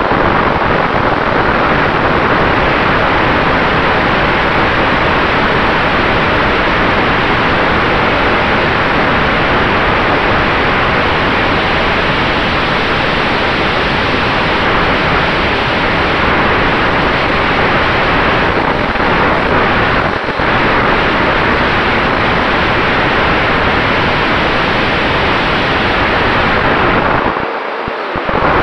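Onboard sound of a Sonicmodell Mako RC flying wing in flight: a loud, steady rush of airflow over the camera's microphone, mixed with the propeller and electric motor, with a faint steady whine running through it. The low rumble thins out briefly near the end.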